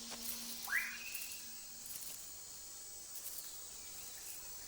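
Rainforest insects keeping up a steady high drone. About a second in comes a single rising call that sweeps up and then holds, with a few faint clicks.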